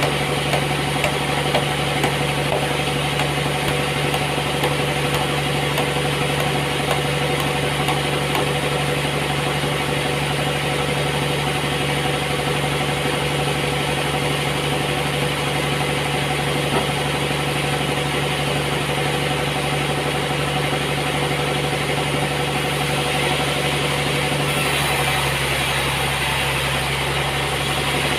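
Sawmill machinery running steadily with a constant engine-like hum, its tone shifting slightly near the end.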